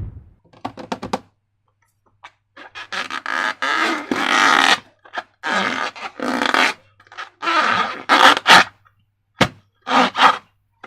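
Slime and a rubber balloon being squished and handled: an irregular series of wet squelches and rubbing scrapes, some short and some a couple of seconds long.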